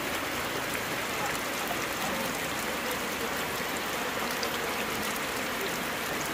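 Steady rain falling, mixed with the sound of the river flowing.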